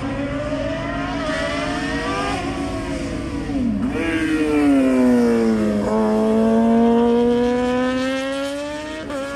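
Sports-prototype race car's engine working hard on a slalom run. Its pitch climbs, drops sharply twice as the driver shifts or lifts, then rises steadily again. It is loudest in the middle as the car goes past.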